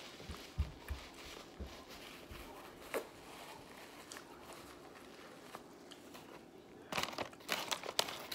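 Soft chewing and handling noises with a few low thuds in the first couple of seconds, then a cluster of paper crinkling near the end as a fast-food paper bag is handled.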